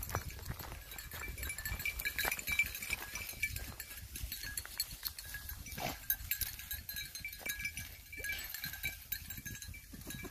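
Hunting hound's collar bell jingling on and off as the dog works through tall dry grass, with rustling and crackling of the dry stalks.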